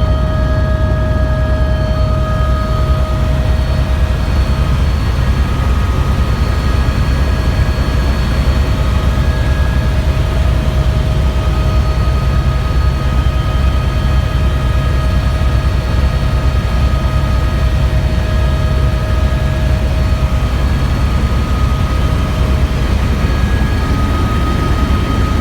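Helicopter in flight, heard from inside the cabin: a loud, steady low drone of rotor and engine, with a few faint steady whining tones over it.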